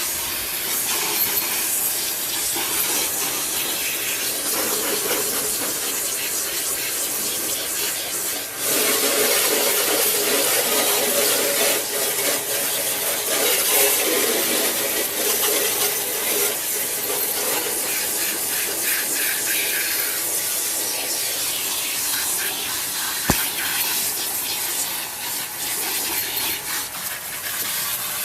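Steady hiss of water spraying over a car's engine bay, getting louder and fuller about a third of the way in and easing off again later.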